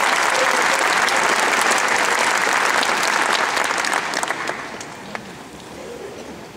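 Large audience applauding, the applause dying away between about four and five seconds in, leaving a few scattered claps.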